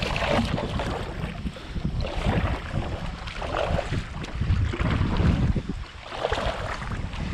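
Kayak paddle blades dipping and splashing in shallow lake water, a stroke about every second and a half, over wind rumbling on the microphone.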